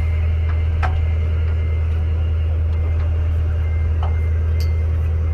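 Fishing party boat's engine running with a steady low drone, with a few faint clicks over it.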